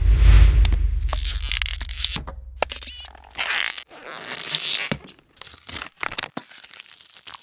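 Close-up sound effects of metal tweezers scraping and pinching at a ballpoint pen's tip and ink. A deep rumble fades over the first two seconds, then come short rasping noises and sharp clicks.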